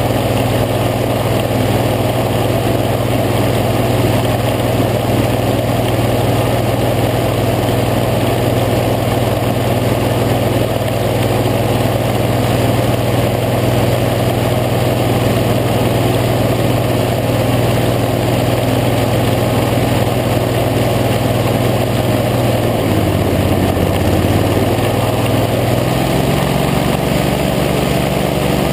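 Boat engine running steadily at speed over rushing wind and water noise. About 23 seconds in, the engine note drops briefly as the throttle eases, then rises to a higher, faster note.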